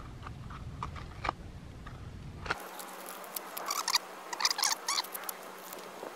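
Crinkling and light clicks of a paper wrapper being handled and torn apart by hand, with a run of short squeaky chirps between about three and a half and five seconds in.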